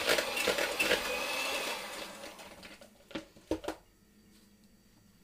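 Electric hand mixer beating softened butter in a bowl. It runs for about two seconds and then dies away as it is switched off, followed by two sharp knocks as the mixer is set down against the bowl.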